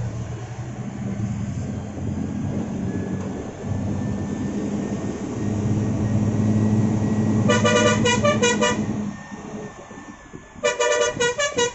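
Bus engine running, heard from the driver's cabin, growing louder midway and dropping back about nine seconds in. The bus horn sounds in two bursts of rapid pulsing notes, the first about two-thirds through and the second near the end.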